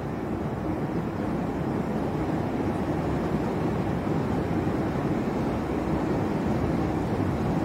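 Night thunderstorm heard as a steady low rumble with no distinct claps or cracks, growing slightly louder about a second in.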